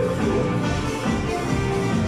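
Live music played on an electronic keyboard: a melody line over a steady rhythm accompaniment.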